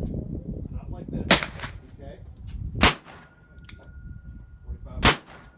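Ruger Blackhawk single-action revolver firing .38 Special rounds: three sharp shots about one and a half to two seconds apart, each with a short echo.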